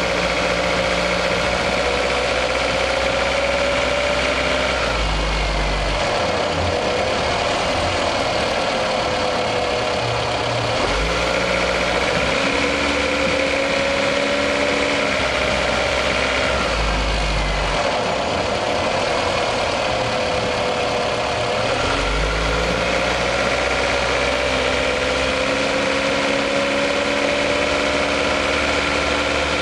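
Toyota RAV4's 1AZ-FE 2.0-litre four-cylinder engine heard from inside the engine bay while driving under load, its pitch climbing over several seconds and dropping back about four times. The owner is recording it for a knock that shows when the warm engine pulls under load.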